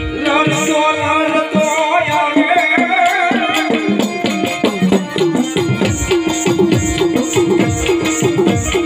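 Gujarati devotional folk music: a wavering melody over quick tabla-style hand-drumming, with a steady high ticking percussion beat about twice a second.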